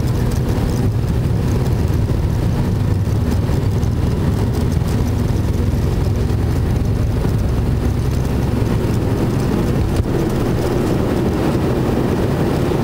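Cabin noise inside an MD-88 jetliner with its engines running: a steady low engine drone. A fuller rumble builds in the second half, and there is one small knock about ten seconds in.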